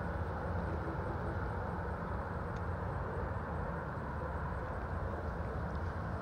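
Steady outdoor background noise: a low rumble and hiss with no distinct events.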